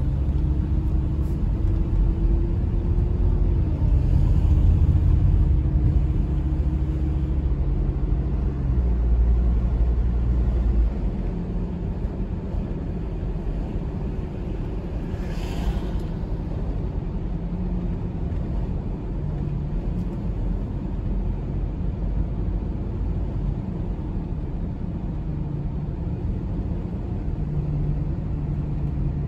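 Car engine and road rumble heard from inside the cabin while driving. The engine note rises slightly in the first few seconds, the low rumble eases off about ten seconds in, and there is a short sharp noise about fifteen seconds in.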